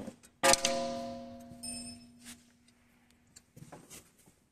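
A hammer strikes once about half a second in, driving a steel positioning pin into the pallet truck's handle pivot. The metal rings out brightly and fades over about two seconds. A few faint light clicks of metal parts follow.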